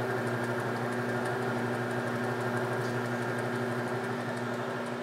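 Motorized leather edge burnishing machine running with a steady hum, its grooved wooden burnisher spinning while the edge of a small leather piece is held against it and burnished.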